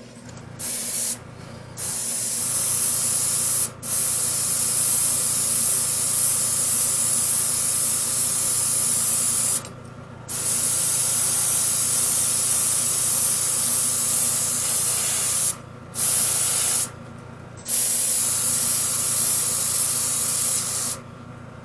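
Airbrush hissing as it sprays black paint onto a spoon, in about six bursts from half a second to about five seconds long, broken by short pauses. A low steady hum runs underneath.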